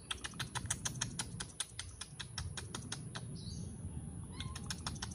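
A quick run of sharp clicks, about seven a second, that stops after about two seconds and starts again near the end.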